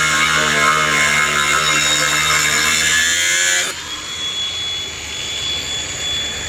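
Makita angle grinder with a cut-off wheel cutting into the hollow metal tubing of a trailer, a loud harsh grinding. About three and a half seconds in it drops sharply in loudness as the wheel comes off the metal, and the grinder runs on free with a steady high whine.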